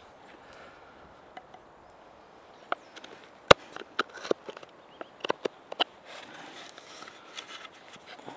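Knife carving a notch into a wooden bow-drill fireboard: a series of sharp clicks and snaps as the blade cuts into the wood, a little under three seconds in and through to about six seconds, with one louder crack a little after three and a half seconds in.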